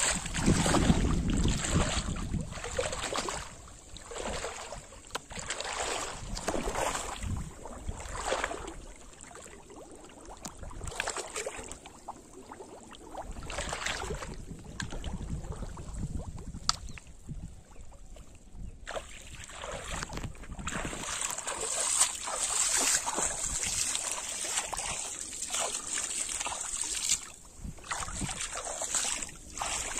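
Pond water sloshing and splashing as a person wades knee-deep through it, in irregular swishes, with splashes as plastic bottle traps are set down on the water.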